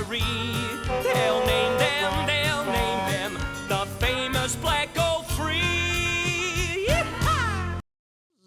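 Country-style song music with jingling, wavering pitched lines, ending with a rising note and stopping abruptly near the end.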